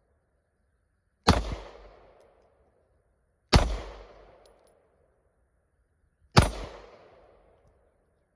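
Three shots from an AR-15 rifle, two to three seconds apart, each a sharp crack followed by an echo dying away over about a second.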